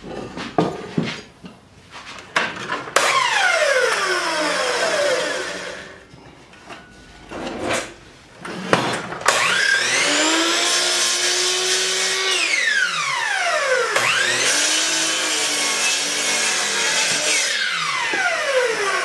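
Miter saw started three times, its motor whining up to speed and cutting through a hardwood block, then spinning down with a falling whine after each cut. Knocks of the wood being set against the fence come before the first cut and between the first and second.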